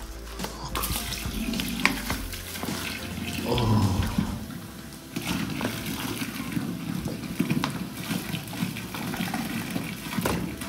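Cola pouring in a thick stream from a large plastic soda bottle into a cut-off plastic bottle, splashing as it fills.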